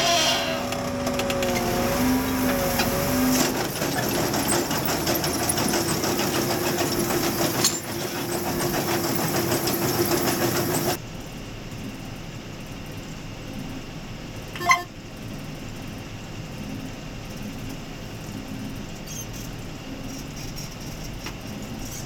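A John Deere tractor pulling a peanut digger-inverter: the digger's rods rattle and the engine runs loud with a steady hum. About eleven seconds in this gives way to the quieter, muffled engine drone heard inside the tractor cab, with one brief tone a few seconds later.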